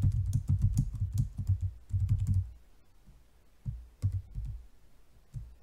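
Computer keyboard typing in quick runs of keystrokes, pausing about two and a half seconds in and picking up again about a second later.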